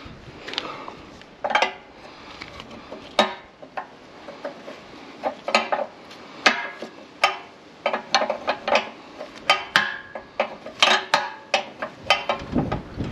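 A steel spanner clinking and clicking against the bolts of a Fordson Super Major tractor as they are worked loose: a string of irregular, sharp metallic clinks.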